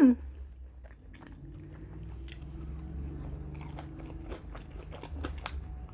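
A person chewing a bite of fried orange chicken, a run of small crunches and mouth clicks.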